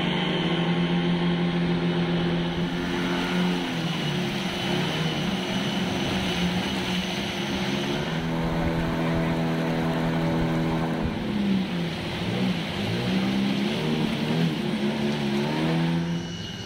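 An engine running, its pitch shifting down and back up several times as its speed changes.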